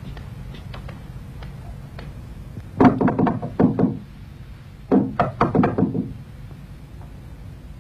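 Knocking on a door: two quick bursts of about six knocks each, the second starting about a second after the first ends.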